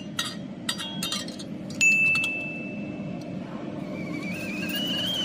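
Light metallic clinks and taps on thin laser-welded stainless steel plate. About two seconds in, a sharper strike leaves a clear high ringing note for about a second. Near the end a faint whistle-like tone starts and rises in pitch.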